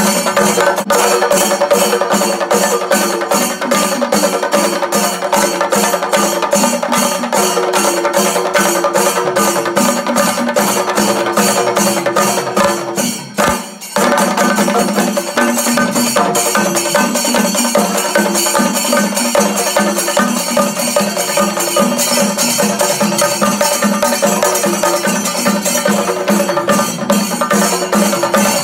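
Music with a fast, steady percussion beat. It drops out briefly about halfway through, then picks up again.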